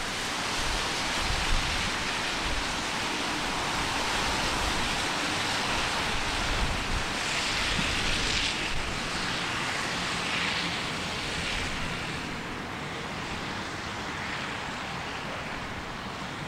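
Outdoor wind: a steady rushing hiss that swells a few times around the middle, with some low rumble of wind on the microphone.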